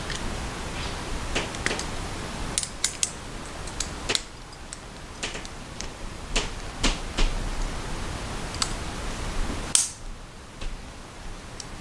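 Small metal parts of a Tangram Vector button-lock folding knife clicking and tapping as the knife is handled and reassembled: irregular light clicks, the loudest a little before the end.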